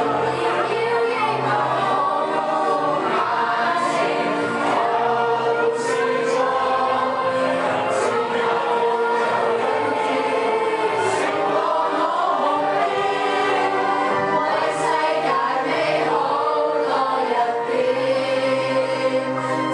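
A group of girls singing a song together through microphones.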